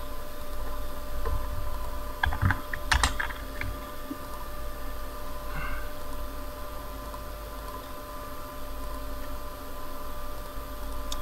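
Computer keyboard typing: a short run of keystrokes about two to three and a half seconds in, with a few scattered key clicks elsewhere, over a steady background hum.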